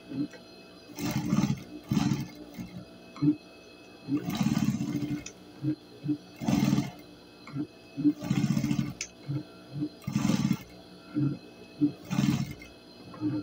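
Industrial sewing machine stitching through denim in stop-start runs: about seven bursts of under a second to about a second each, with brief single clicks between them.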